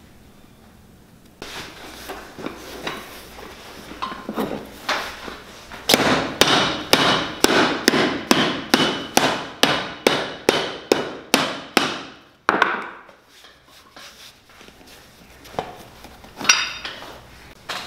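A shoemaker's hammer striking the leather bottom of a boot held in the lap. There are light taps at first, then about six seconds of steady blows at two to three a second, then a few scattered knocks.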